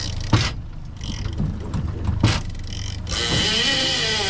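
Fishing reel drag paying out line as a hooked bluefin tuna runs, a mechanical clicking buzz that stops for a couple of seconds in the middle. A low, steady boat-engine hum runs underneath, with two sharp knocks about a third of a second and two and a quarter seconds in.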